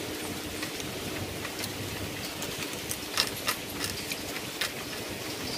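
Steady hiss of rain, with a few sharp ticks and clicks in the middle.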